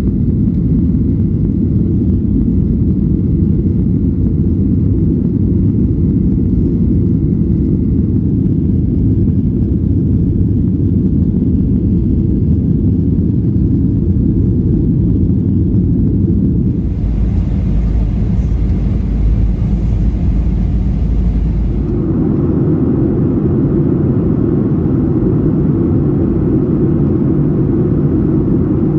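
Airliner cabin noise: a steady low rumble of jet engines and airflow, changing briefly about 17 seconds in, with a deeper rumble and more hiss, and settling back about 5 seconds later.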